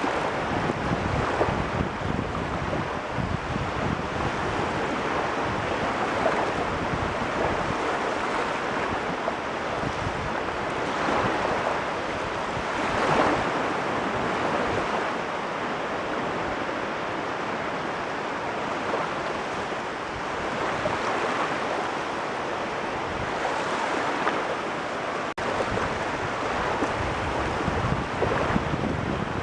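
Caspian Sea waves washing in, a steady rush that swells every few seconds, loudest about halfway through, with wind buffeting the microphone.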